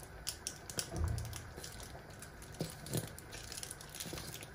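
Cooking cream pouring from a plastic bottle into a pot of simmering chicken and tomato sauce, with irregular small pops and clicks and a soft low thud about a second in.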